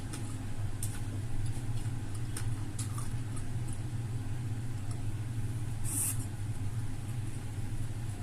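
Faint clicks and small smacking sounds of eating, with one short crisp rustle or crunch about six seconds in, over a steady low hum.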